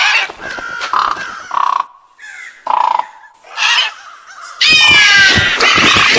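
Crows cawing, a few short caws in the first three seconds. About four and a half seconds in, a much louder, harsh roar with falling pitch cuts in and carries on: a dinosaur roar sound effect.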